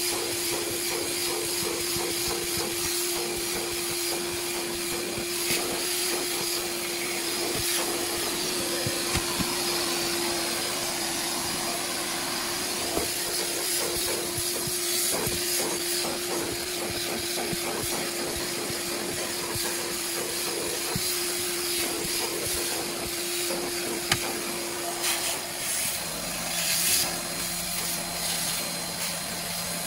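Vacuum cleaner running steadily with a constant whine while its crevice nozzle is drawn over car floor carpet, scratching against the pile. Near the end, as the nozzle moves to the seat, the motor's note drops lower.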